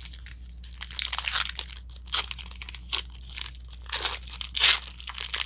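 Rustling and crinkling of Panini Phoenix football cards and their pack being handled, in a string of short scratchy bursts; the loudest comes about four and a half seconds in.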